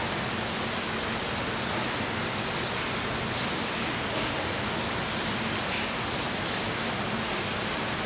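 A steady, even rushing hiss with no distinct events in it.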